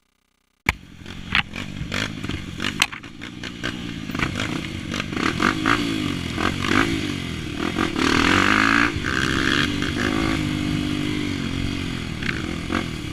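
Honda XR 250 Tornado trail bike's single-cylinder four-stroke engine, bored to 280cc, starting about a second in and revving up and down as the bike rides a rough trail, with scattered knocks and clatter.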